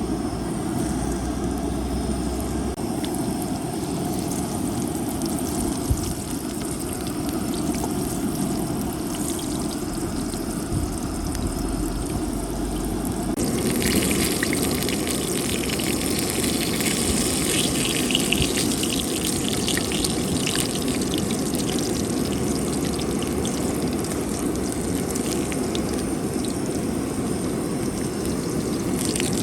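Oil sizzling steadily as bolani flatbreads fry. The crackling grows denser and louder about halfway through.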